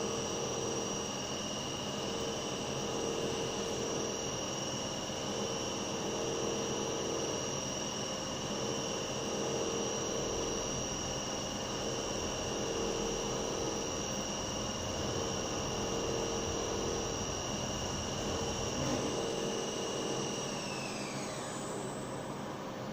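CNC machine spindle running with a steady high whine over a rough cutting noise while it machines a part. Near the end the whine falls in pitch and fades as the spindle slows down.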